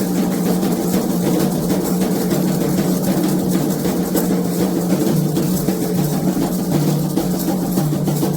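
Candomblé ritual drumming on atabaques, a fast, steady, unbroken rhythm of hand drum strikes.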